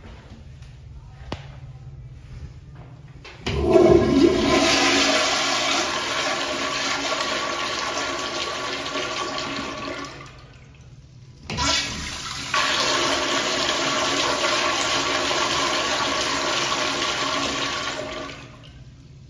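Wall-hung toilet with an exposed flushometer valve (American Standard bowl) flushing twice, each a loud rush of water swirling down the bowl for about seven seconds. The first starts a few seconds in, and the second starts just after the first dies away.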